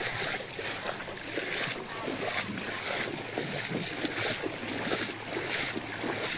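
Wading through shin-deep floodwater on a road: water sloshing and splashing around the legs with each step, with wind on the microphone.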